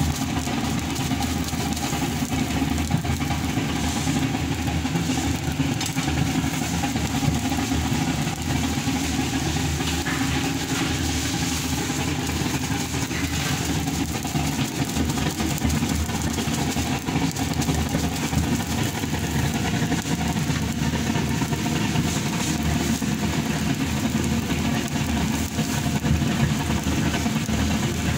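A steady, low, engine-like mechanical drone, unbroken throughout.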